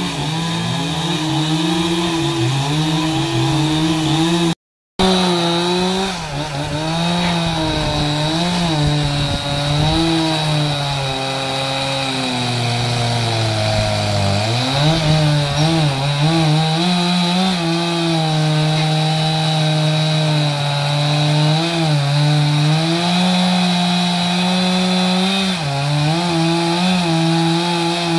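Stihl MS 381 two-stroke chainsaw running at high revs, cutting into a large banyan stump, its engine note wavering as the chain takes the load. About twelve seconds in the revs sag sharply under load, then pick back up a couple of seconds later; the sound drops out for a moment just before five seconds in.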